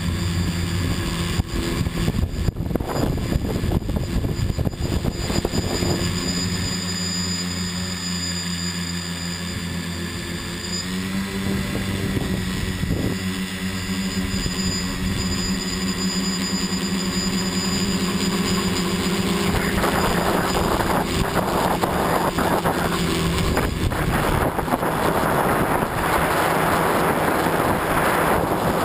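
Remote-controlled camera aircraft's motors and propellers running steadily, heard from on board, with a tone that steps up slightly in pitch about eleven seconds in. A rushing noise, likely wind, swells over the last third.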